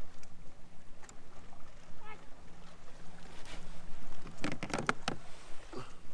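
A hooked small flounder flapping on the line beside a kayak: a quick cluster of sharp knocks about four and a half seconds in, over a steady hiss of water and wind.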